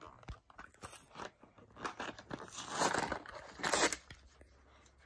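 Paper and cardboard toy packaging being torn open and crinkled by hand: scattered small crackles, with two louder tearing rips about halfway through and shortly after.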